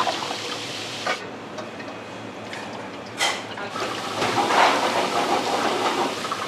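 Water running and splashing in a kitchen sink, growing louder for a couple of seconds near the end, with two sharp knocks of kitchenware about one and three seconds in.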